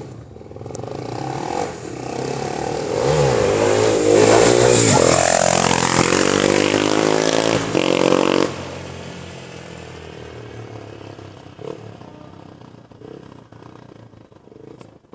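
Honda XR250 Tornado single-cylinder four-stroke motorcycle engine revving hard as it accelerates, pitch climbing in steps through the gears and loudest about halfway through. A little past the middle the throttle shuts off abruptly, and the engine carries on much quieter, fading.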